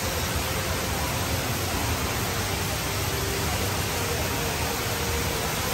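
Rain Vortex indoor waterfall at Jewel Changi, a column of water pouring into a bowl-shaped pool: a steady, even rush of falling water.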